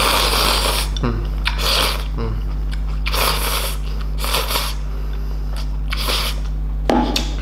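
A person slurping instant noodles from a bowl: about five short slurps a second or so apart, over a steady low hum.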